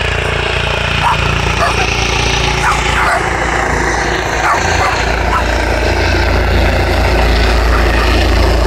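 Air-ambulance helicopter running, a steady heavy low rumble that grows louder in the last few seconds.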